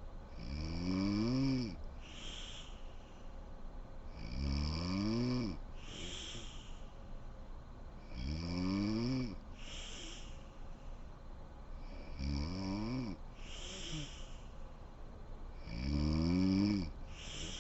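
A sleeping woman snoring in a steady rhythm: five snores about four seconds apart, each a pitched rattle that rises and falls, followed by a short breathy puff.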